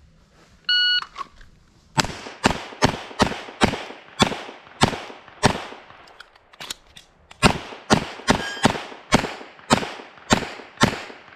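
A shot timer beeps once, then a semi-automatic pistol fires a fast string of shots close up over about nine seconds, with a pause of a couple of seconds partway through.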